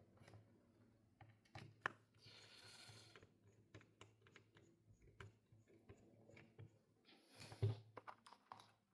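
Faint scattered clicks and taps of a small screwdriver and laptop plastic as the bottom-cover screws go back in. There is a brief rustle about two seconds in and a louder knock near the end.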